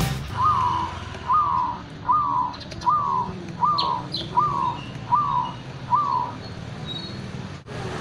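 Zebra dove (perkutut) cooing: a run of eight short notes, each rising quickly and then falling, about three-quarters of a second apart. A few faint high chirps come in near the middle.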